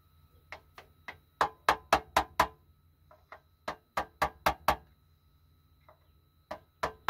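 Sharp taps in quick runs of four or five, about four a second, as a new impeller is worked into the raw-water pump housing of a marine diesel engine.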